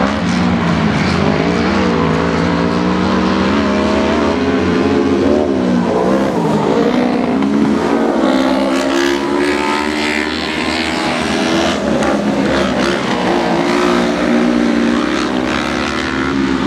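Racing engines of several autocross buggies running hard, revving up and down so the pitch rises and falls repeatedly, with more than one engine heard at once.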